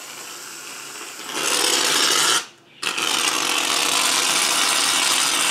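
Aerosol foam can spraying foam in a steady, sputtering hiss: softer at first, loud from about a second and a half in, with a short break about two and a half seconds in before the spraying starts again.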